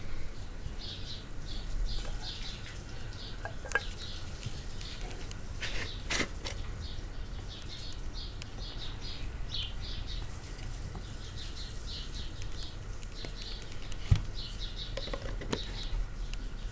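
Small birds chirping over and over, several short chirps a second, with a few sharp knocks, the loudest about fourteen seconds in.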